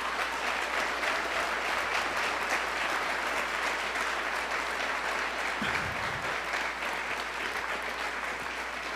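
Audience applauding, many people clapping steadily, easing off a little near the end.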